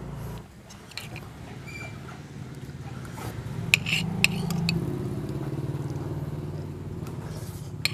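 A motorbike engine running in the street, its hum growing louder about three seconds in and holding steady. A metal spoon clinks and scrapes on a ceramic plate a couple of times near the middle.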